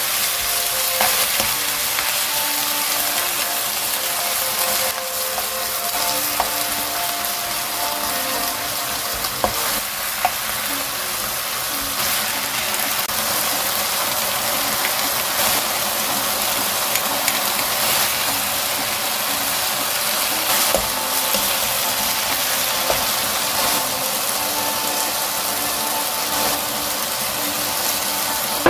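Sliced eggplant and onion sizzling in a nonstick wok as they are stir-fried with a wooden spatula: a steady frying hiss with a few light knocks of the spatula against the pan.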